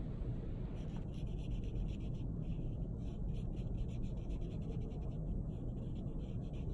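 Small paintbrush stroking acrylic paint onto paper: soft, quick, scratchy brush strokes that start about a second in and keep going, over a low steady hum.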